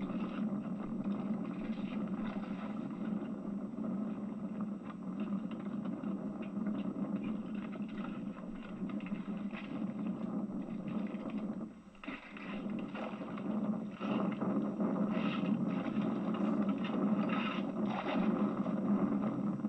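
Small oyster boat's outboard motor running steadily, with scattered knocks and scrapes as oyster tongs are worked and shells clatter in the boat. The sound briefly drops away about twelve seconds in.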